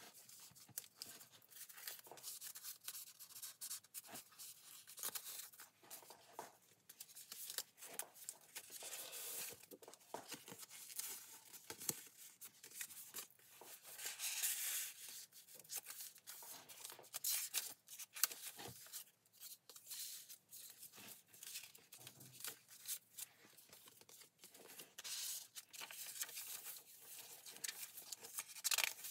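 Paper rustling and crinkling as the pages of a handmade junk journal are turned and tucked cards and envelope pockets are handled: soft, irregular rustles and flaps of paper, a little louder about halfway through.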